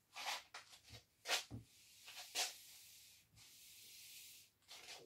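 Felt-tip marker rubbing across a whiteboard: a few short scratchy strokes, then a longer steady hiss of writing from about two seconds in.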